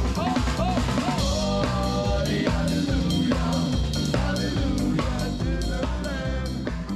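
Live street jazz band playing: a drum kit keeps a steady beat under bending melody lines from horn and voice.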